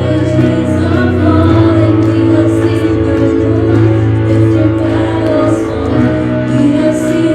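Live worship music: a band with guitar playing sustained chords, with some singing.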